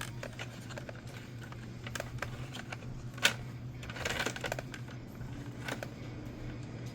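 Small plastic clicks and taps from handling the parts and interlock switches of an opened motorized toy dart blaster, with one sharper click about three seconds in and a short rattle just after, over a steady low hum.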